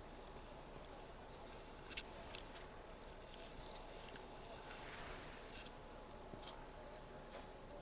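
Quiet eating sounds close to the microphone: scattered light clicks, a sharper click about two seconds in, and a soft rustling hiss in the middle.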